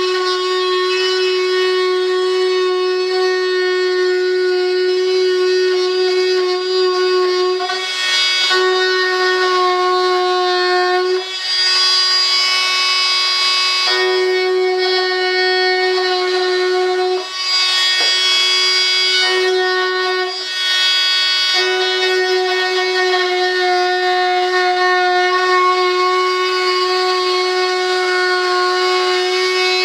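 High-speed rotary tool cutting through carbon composite: a steady high whine that sags in pitch and picks up a gritty grinding hiss several times as the cutter bites into the material.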